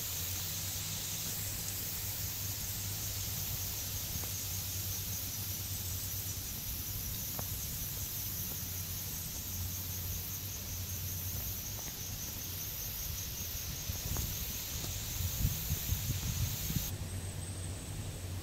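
Steady outdoor insect chorus: a high, fast-pulsing trill over a hiss, with a low steady hum underneath. The high trilling drops away sharply about a second before the end.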